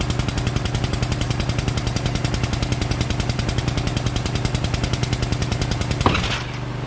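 Frame-straightening pull rig's pump running with a fast, even clatter of about a dozen pulses a second over a steady hum. About six seconds in, a sharp bang as the clamp holding the pulling strap gives way under heavy tension, and the clatter stops.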